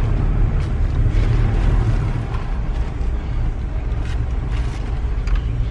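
Steady low rumble of a car heard from inside the cabin, with a few faint light clicks.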